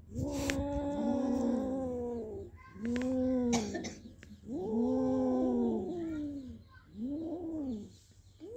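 Kittens yowling and growling over a caught mouse: four long, drawn-out moaning yowls, each rising and then falling in pitch. This is the possessive warning cry of a cat guarding its prey from a rival.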